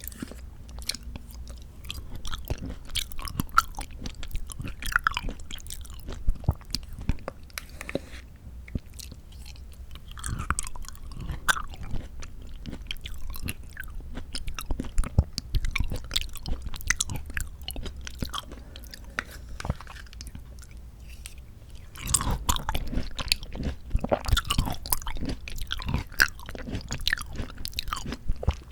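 Close-miked chewing of mandarin orange segments from a fruit cup: a dense run of irregular mouth clicks and smacks, busier and louder in the last several seconds.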